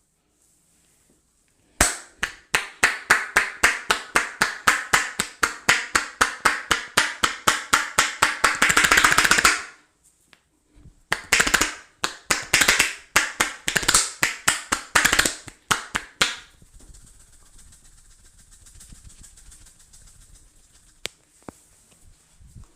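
Rapid rhythmic percussive taps on a head during a barber's head massage, about five strikes a second and quickening towards the end of an eight-second run, then, after a short pause, a second run of about five seconds.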